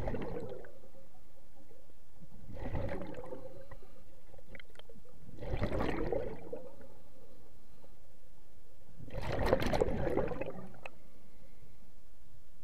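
Scuba diver's exhaled bubbles rushing out of the regulator, heard underwater in four bursts of about a second each, roughly every three to four seconds, over a faint steady hum.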